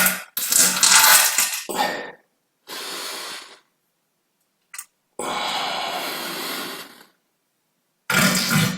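A run of human farts, about six in all, each cut off by dead silence: long, loud, buzzing ones near the start and end, a quieter one, a brief blip, and one long airy hiss in the middle.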